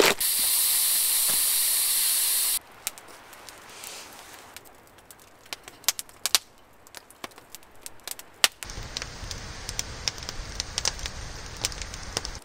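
A loud steady hiss that cuts off about two and a half seconds in, then a wood campfire crackling with scattered sharp pops, with a low rumble joining under the pops near the end.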